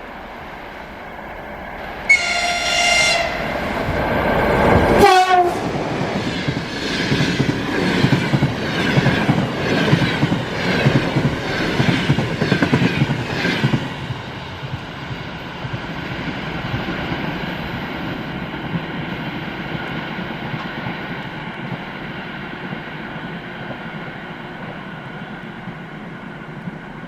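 EP20 electric locomotive hauling a passenger train sounds a short horn blast about two seconds in, then passes close with a sharp falling sweep in pitch about five seconds in. The coaches follow with a rhythmic clickety-clack of wheels over rail joints for about eight seconds, and the rumble then fades away.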